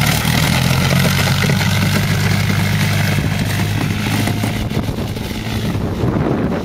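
ATV engine running steadily under load while pushing a snow plow blade, then easing off near the end.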